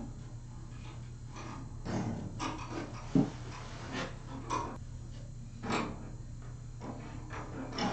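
Scattered clunks and clicks of metal parts and tools being handled while fitting pieces in place, with one sharper knock about three seconds in, over a steady low hum.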